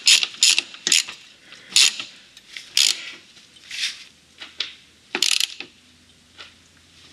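Ratchet wrench clicking in short strokes as it runs a nut onto the gear-linkage bolt. The strokes come quickly at first, then further apart, with one longer run of clicks about five seconds in.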